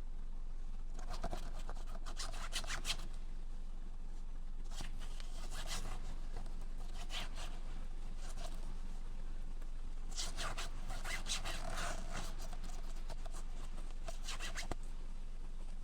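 Hand work on a steering wheel: rubbing and scraping strokes in short clusters of a few at a time, with pauses between, over a steady low hum.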